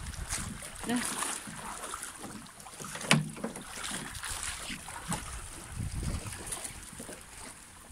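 Wind buffeting the microphone over small seawater waves lapping on rocks, with a sharp knock about three seconds in.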